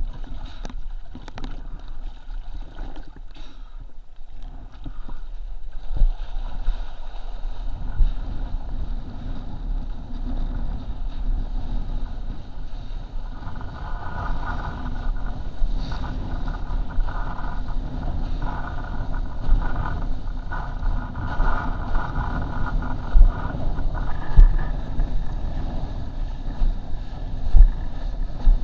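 Wind rushing over an action camera's microphone on a windsurf rig while the board planes across choppy water, with occasional thumps. From about halfway a steady whine rises over the noise.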